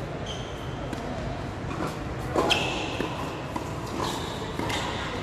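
Tennis rackets striking the ball in a doubles point: a serve and then several quick hits, the loudest about two and a half seconds in. Each hit is a sharp knock with a brief high ring, echoing in a large covered hall.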